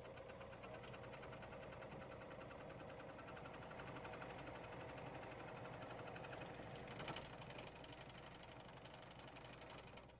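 Husqvarna Huskylock 936 serger sewing a narrow cover stitch, running at a steady fast speed with the rapid even rattle of its needle and looper mechanism. There is a brief louder clack about seven seconds in, and the machine stops at the end.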